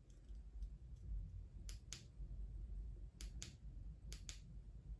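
Faint short clicks in three quick pairs, the two clicks of each pair close together, over a low steady background rumble.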